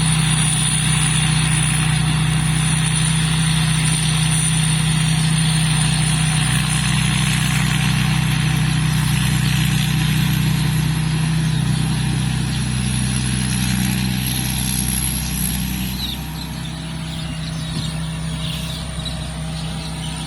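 Large diesel combine harvester running steadily, with a constant engine hum and a thin high whine above it; it gets somewhat quieter about three quarters of the way through.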